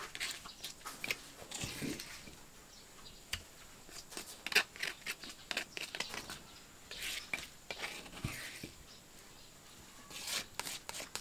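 Plastic spatula scraping ground chili sambal off a stone pestle and out of a stone mortar, in intermittent short scrapes with light taps against the stone.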